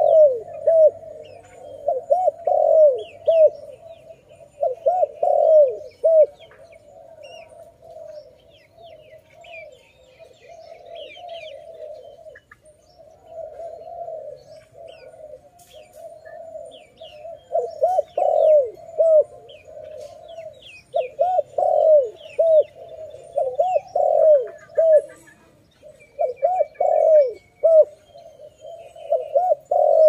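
Spotted dove cooing in repeated phrases, loud at the start and again through the second half, softer in between. Faint short chirps of small birds sound in the background.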